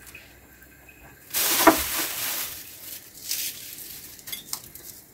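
Kitchen handling sounds while cooking: a burst of rustling with a clink about a second and a half in, then a few lighter rustles and taps.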